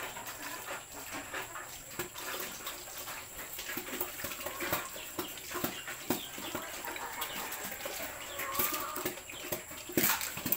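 A sow eating and slurping at her trough, an irregular run of wet slurps and clicks, loudest near the end.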